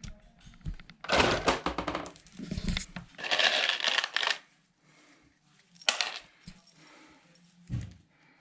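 Loose metal hardware clinking and rattling in two bursts of many small clicks, then a single sharp clack about six seconds in.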